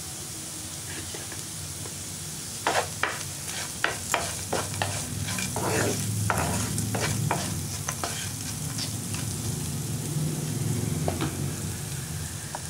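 Wooden spatula stirring onions, dried red chillies and spices in a frying pan, over a steady sizzle of hot oil. From about two and a half seconds in comes a run of irregular sharp scrapes and knocks of the spatula against the pan, which thins out after about nine seconds.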